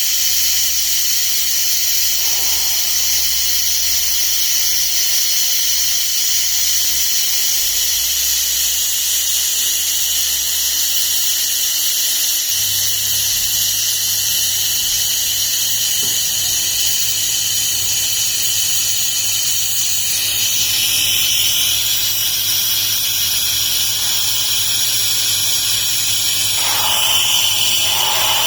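Fiber laser welding machine running during tube welding: a steady high-pitched hiss and whine, with a low hum underneath that shifts up in pitch about halfway through.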